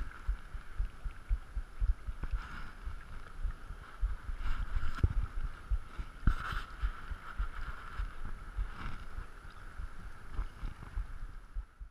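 Shallow seawater sloshing and lapping as someone wades, with many irregular low thumps close to the camera.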